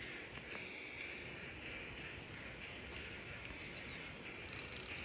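River water flowing: a steady, even rushing hiss, with one faint click about half a second in.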